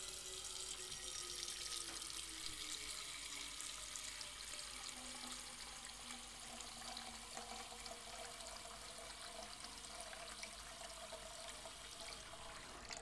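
Kitchen tap running steadily into a stainless steel saucepan, filling it with a couple of inches of water; the flow stops near the end.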